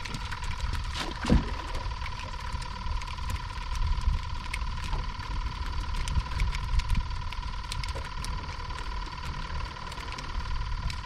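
Wind rumbling on the microphone, with a steady high-pitched tone and scattered light clicks and taps as a small bluefish is handled and unhooked.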